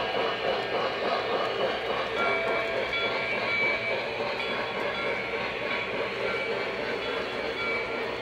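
Lionel model train running on its track: a steady rumble of wheels and motor, with brief thin high-pitched squeaks coming and going.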